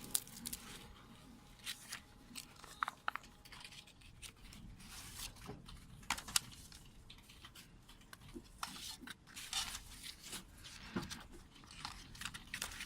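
A CD package being torn open and its wrapping crinkled, with scattered light clicks from handling the case.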